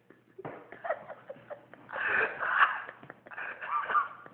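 A man laughing in breathy, irregular bursts, loudest about two seconds in.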